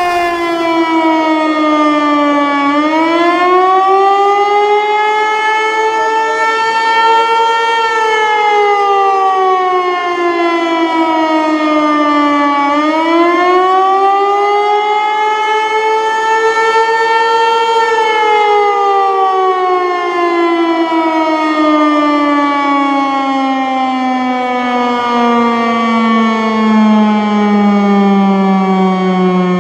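Outdoor civil-defense warning siren sounding a loud test wail. Its pitch sweeps up, holds and falls back twice, then slides down slowly as it winds down near the end.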